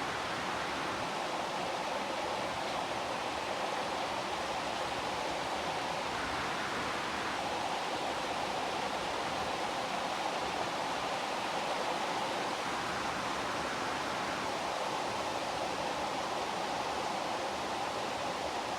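Steady heavy rain, a dense even hiss of falling water with no distinct drops or thunder.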